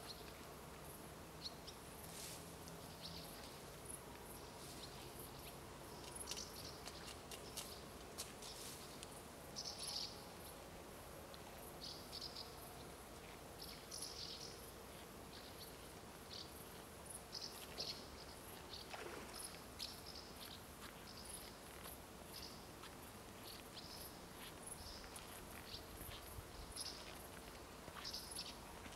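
Faint outdoor ambience with short, high-pitched chirps repeating irregularly throughout.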